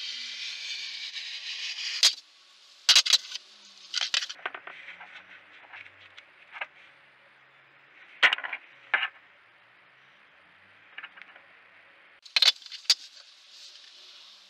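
Hard objects scraping across a workbench top for about two seconds, then a series of sharp metallic clinks and knocks as metal parts are handled and set down on the bench, spaced a second or several seconds apart.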